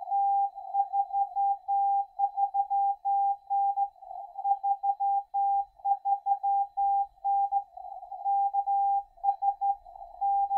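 Morse code (CW) received on a Xiegu G106 HF transceiver tuned to 14.050 MHz in the 20-metre CW band: a single steady tone keyed in dots and dashes, with faint band noise in the gaps between them.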